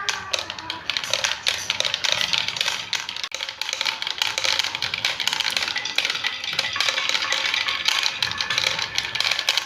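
Many marbles rolling and clattering down a toy marble run: a dense, continuous stream of clicks and clacks.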